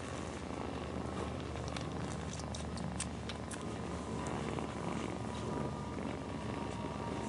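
A domestic cat purring steadily, a continuous low pulsing rumble, with a few light clicks about two to three and a half seconds in.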